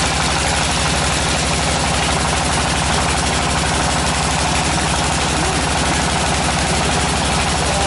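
Tractor engine powering a DFT-450 tractor-mounted water well drilling rig, running steadily with an even, rapid low pulse.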